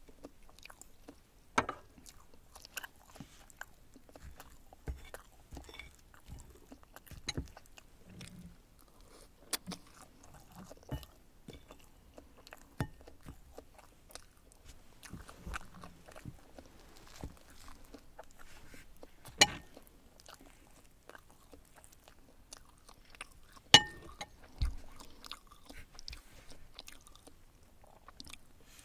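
A person eating soft souffle omelette: close chewing and mouth sounds, with scattered sharp clicks of a knife and fork on a ceramic plate. The two loudest clicks come about two-thirds of the way through and some four seconds after.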